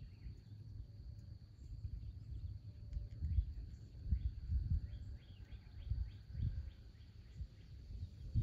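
Wind buffeting the microphone in irregular low rumbles, with a low thump just at the end. Faint bird chirps and a steady high insect drone sit behind.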